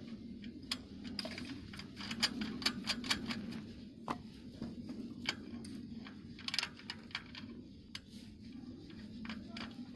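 Irregular light metallic clicks and ticks as a nut is threaded by hand onto the axle of a trike wheel's hub.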